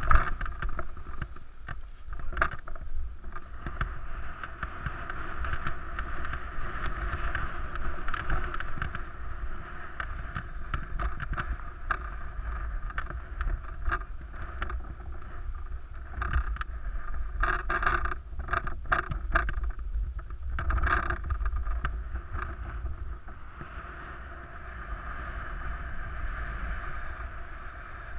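Wind buffeting the microphone of a camera carried down a ski slope, over the steady hiss of skis sliding and scraping on packed snow. About two-thirds of the way through comes a short cluster of sharper scrapes and clatters.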